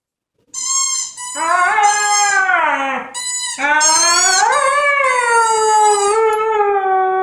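A dog howling: two long howls, the first breaking off about three seconds in, the second rising and then slowly falling. High squeaks from a squeaky plush toy in her mouth come in the first second and again in the gap between the howls.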